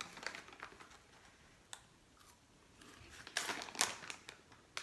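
Faint crackling and crunching of cheese curls being taken from the bag and eaten, with a short cluster of louder crunches about three and a half seconds in.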